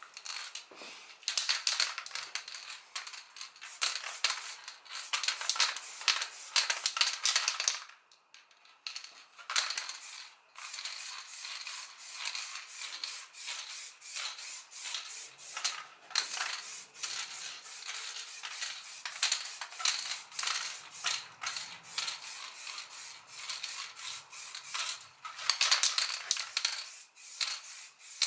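Hand sanding of a filled plastic car bumper: fast, scratchy rubbing strokes that run on with a short pause about eight seconds in.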